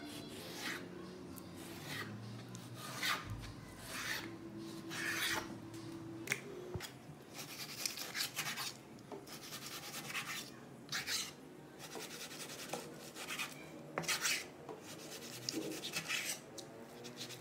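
Chef's knife slicing raw pork on a wooden cutting board: a series of irregular rasping cutting strokes, with a few sharp clicks of the blade against the board.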